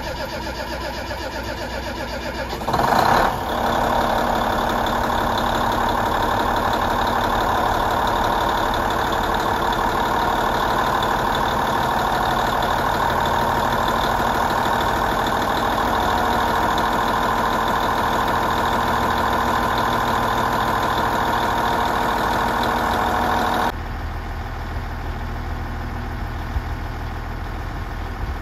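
Diesel engine of a JR Central Kiya 97 series track-maintenance railcar idling after start-up. About three seconds in there is a brief loud burst, and the engine then runs louder and steadier for about twenty seconds. Near the end it drops abruptly to a lower, deeper idle.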